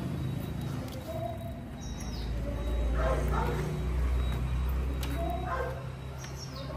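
Dog giving a few short yips and whines about one second in, around three seconds in and again near the end, as it is helped up onto the front of a motorcycle. A low rumble runs underneath from about two seconds in.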